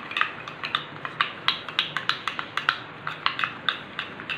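A plastic spoon stirring sauce in a small stainless steel bowl, clicking and scraping against the metal sides in quick, irregular taps, about three or four a second.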